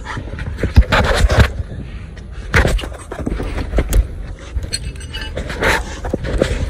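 Metal hand tools clinking and scraping on concrete as a socket wrench on an extension bar is picked up and handled: a string of irregular sharp clinks and knocks, with a low steady rumble of wind on the microphone beneath.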